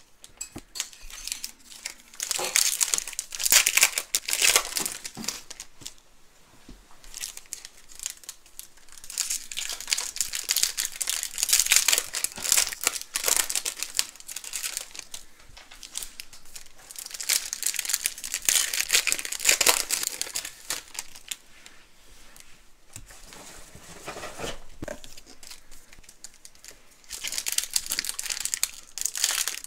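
Plastic trading-card packaging being torn open and crinkled in repeated spells, several seconds at a time, with quieter pauses between.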